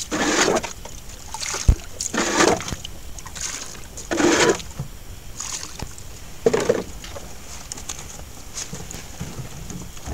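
Water being bailed out of a small fishing boat's hull: a splash about once a second as each scoop is thrown out, for about seven seconds before it stops, with one sharp knock about two seconds in.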